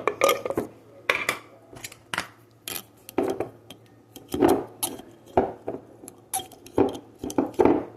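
A metal utensil clinking irregularly against a container, over a dozen short sharp clicks, while jalapeno slices are picked out and placed on the bread.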